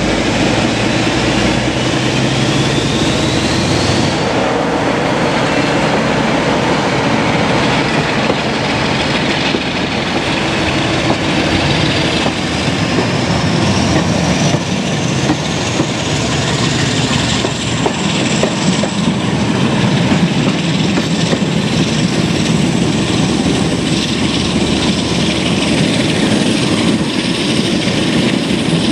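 A locomotive-hauled train heard from an open coach window, with a Class 47 diesel's Sulzer engine working and steady wheel-on-rail and wind noise. A whine climbs in pitch over the first few seconds, then climbs again more slowly through the middle.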